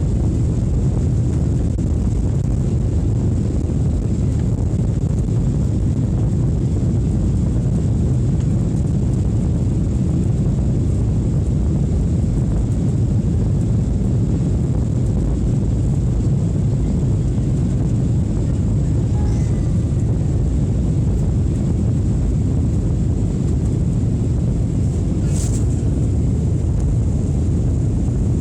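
Passenger airliner cabin noise shortly after takeoff: a loud, steady low roar of the engines and airflow, with a faint high whine throughout and a single brief click near the end.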